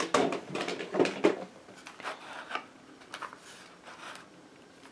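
Clear plastic blister pack being handled and opened by hand: irregular crackling and rustling of the thin plastic, busiest in the first two and a half seconds, then a few fainter rustles.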